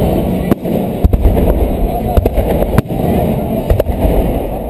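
Fireworks bursting overhead: a string of sharp bangs at irregular intervals, some coming in quick pairs, over a dense low rumble of crowd noise and voices.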